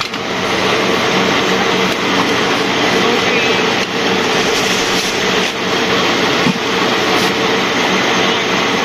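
Steady loud rushing noise with a constant low hum throughout, like a running machine or ventilation blower, under the background of a busy shop.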